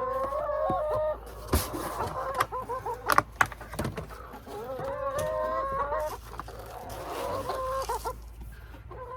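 Chickens calling in long, drawn-out squawks, in three stretches, with a few sharp taps in between.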